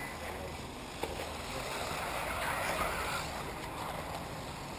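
Electric 1/8-scale RC off-road buggies running on a dirt track, a broad rush of tyres and motors that swells about two to three seconds in and then eases.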